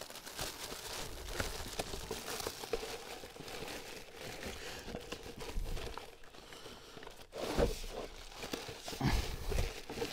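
Rustling and crinkling as the black battery cover is pushed and worked into place over a car battery, with a few light knocks in the second half.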